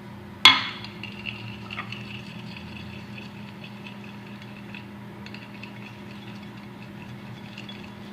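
A sharp click about half a second in, then faint small clicks and scraping from handling homemade slime and its container, over a steady low hum.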